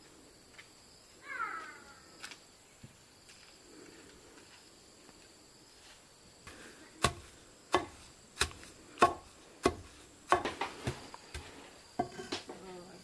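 Chopping: a run of sharp strikes on a wooden board, about one every two-thirds of a second, starting about halfway through.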